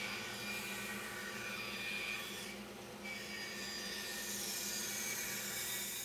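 Band saw running with its blade cutting through a thick wooden blank as the blank is fed along a template, a steady machine hum under the changing sound of the cut. A dust extractor runs on the saw.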